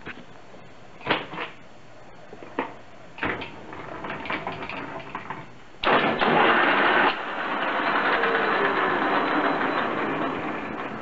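Old metal lathe cutting steel: a few short sharp scraping clicks in the first seconds, then about six seconds in a sudden loud, steady rushing noise of the cut that carries on, easing off slightly near the end.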